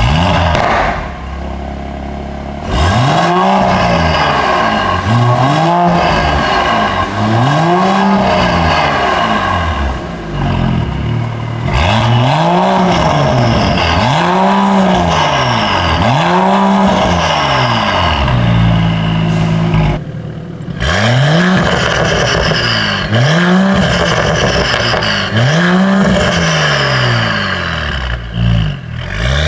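Mercedes-AMG GT53's turbocharged 3.0-litre inline-six, with a Fi valvetronic catback exhaust and catless downpipes, revved repeatedly during a valve-open exhaust test. It gives a string of loud blips about every second and a half, each rising and falling in pitch, with brief drops between runs. Near the end the engine climbs in a longer, steady rise.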